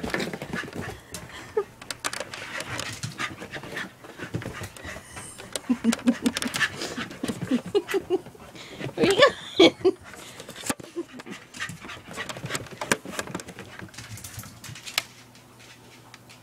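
Corgi panting hard, with runs of short, louder huffs in the middle and a few sharp clicks. The panting stops about a second before the end.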